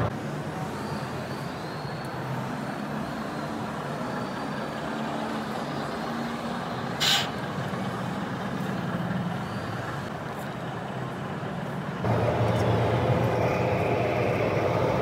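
Steady noise of a busy exhibition hall, with a short sharp hiss about seven seconds in; the background grows louder about twelve seconds in.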